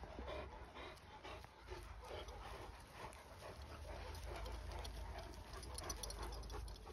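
Large Akbash dog panting in quick, repeated breaths, with a low rumble underneath that grows stronger in the second half.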